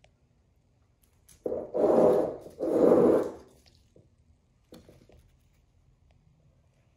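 Two loud rubbing scrapes, each under a second long, back to back about one and a half seconds in, followed by a couple of faint clicks.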